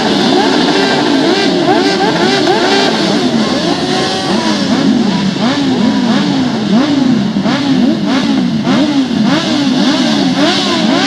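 Several off-road motorcycle engines revving hard, their pitch climbing and dropping again and again as they accelerate and change gear, the sweeps overlapping one another.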